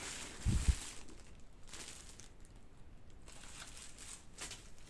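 Faint handling noise from packaging being moved. There is a soft low thump about half a second in, then light rustling and a few small clicks.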